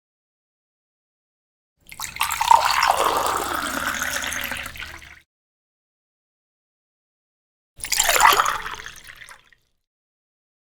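Water being poured into a glass in two separate pours: one of about three seconds starting about two seconds in, then a shorter one about eight seconds in, with silence between.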